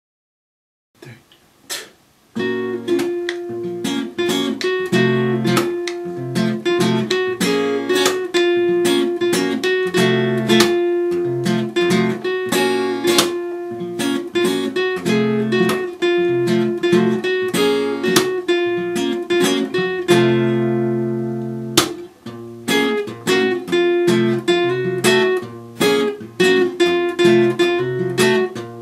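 Music led by a plucked acoustic guitar in a quick, percussive rhythm. It starts about two seconds in and pauses briefly near the end.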